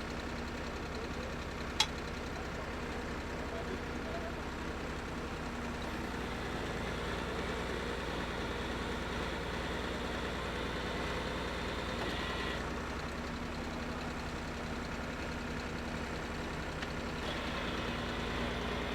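An engine running steadily at idle, with a single sharp click about two seconds in.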